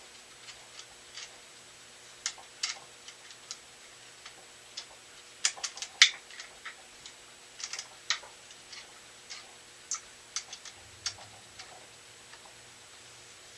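Small metal clicks and taps as a mini metal lathe's three-jaw chuck is tightened by hand on a piece of aluminum, with two chuck pins in its holes. The ticks come irregularly, the loudest about six seconds in.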